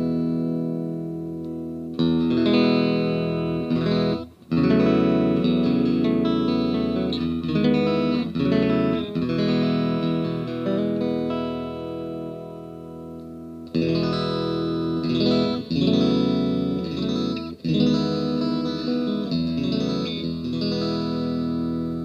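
Tokai SilverStar SS-36 electric guitar played amplified: chords strummed and left ringing, with fresh strums about two seconds in, just after four seconds, near the middle and again a few seconds later.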